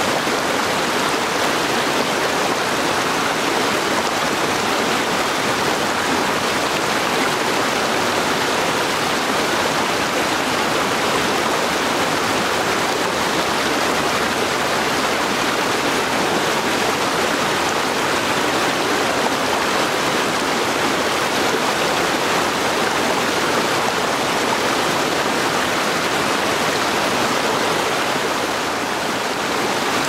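Small mountain forest creek flowing over rocks in low cascades: a steady, even rush of water.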